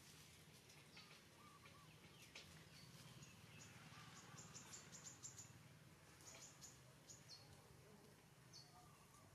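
Faint outdoor ambience: scattered short, high chirps of small birds, several in quick succession about four to five seconds in and a couple of downward-sliding ones near the end, over a low steady hum.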